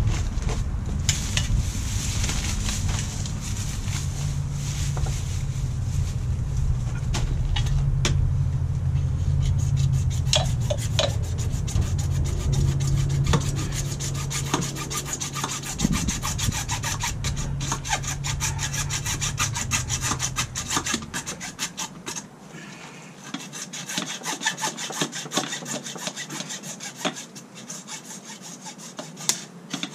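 Hand saw cutting PVC pipe with quick, regular back-and-forth strokes. A low rumble underneath stops about two-thirds of the way through, while the sawing carries on.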